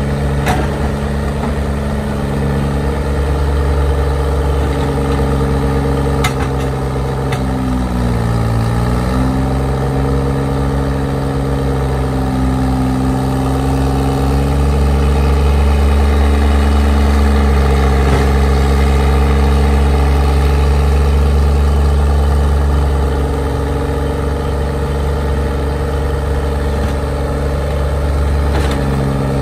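Engine of a Lima cable power shovel running steadily as the machine digs, hoists and swings. Its pitch dips and recovers under load about eight seconds in, and it runs louder for several seconds in the middle, with a few light clanks.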